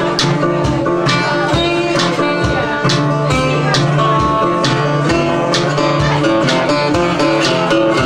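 Blues band playing a groove, electric-style guitar out front over bass and a steady beat.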